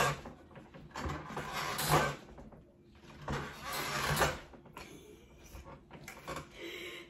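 Two bursts of rustling and scraping, about a second each and a second apart, as a gaming chair and its packaging are handled.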